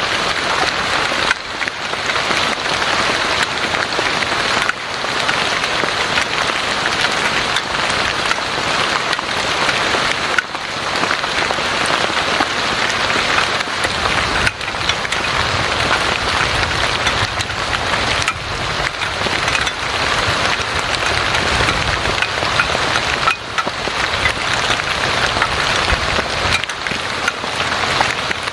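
Heavy rain falling steadily: a dense, even hiss of pouring drops.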